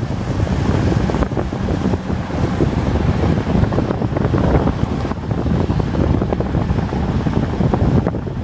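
Wind buffeting the microphone of a phone held at a car window while driving, a loud gusty rumble with road noise underneath.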